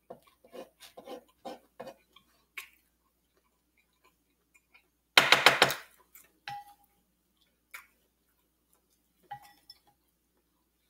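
A wooden spoon clinking and scraping against a plate and a glass bowl of sauce. A string of soft clicks comes first, then a loud burst of rapid clatter about five seconds in, then a few single taps, some with a short glassy ring.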